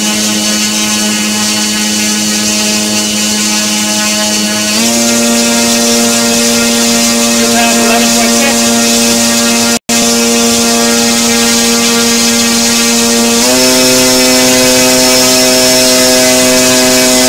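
Motor on a thrust-test stand running at a steady, loud hum that steps up in pitch twice, about five seconds in and again near the end, as the throttle is raised and the measured thrust climbs. The sound cuts out for an instant near the middle.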